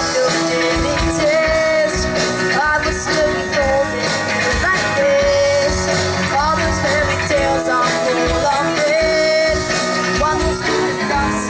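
A band playing a rock-style cover song, with drums keeping a steady beat under held and gliding melody lines.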